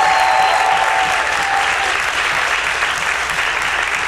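Congregation applauding steadily after a baptism, with a held cheer rising over the clapping for about the first two seconds.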